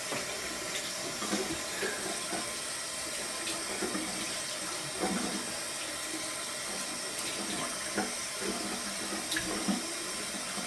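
Bathroom sink tap running steadily while hands are rinsed under it, with irregular splashing as the water hits the hands and basin.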